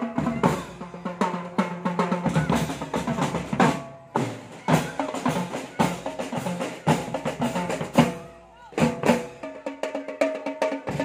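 Marching drum and lyre band playing: snare and bass drums beating a rhythm under the ringing notes of bell lyres (marching glockenspiels) carrying a tune.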